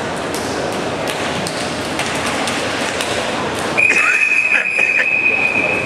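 Swimming-hall crowd murmur with scattered taps and clatter; almost four seconds in, a referee's whistle starts one long, steady, high blast. This is the long whistle that calls swimmers up onto the starting blocks before a race.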